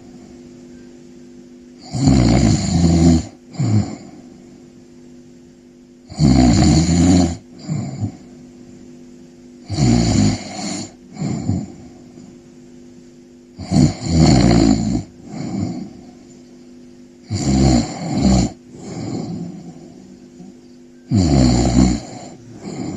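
Slow, regular snoring: six snores about four seconds apart, each a long snore followed by a shorter breath.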